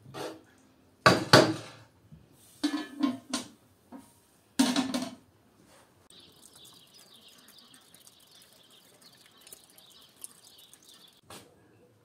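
Metal ladle knocking and scraping against a large aluminium stockpot, with the metal lid clanking on, in several clattering bursts over the first five seconds. After that, a faint steady high hiss.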